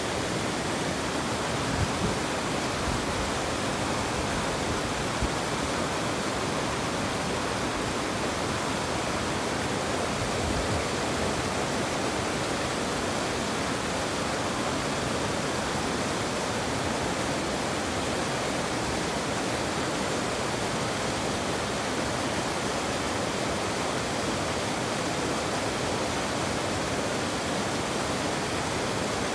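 Steady rushing water, an even unbroken hiss, with a couple of faint brief knocks about two and five seconds in.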